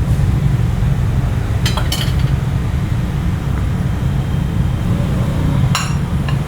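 A steady low rumble, with a couple of short clinks about two seconds in and another near the end.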